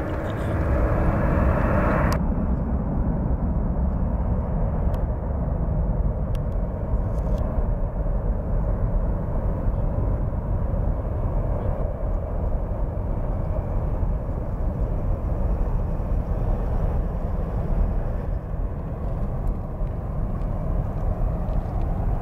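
Jet airliner engine noise: the roar of a climbing jet, then after a cut about two seconds in, a lower, steadier rumble of jet engines from an airliner on the ground.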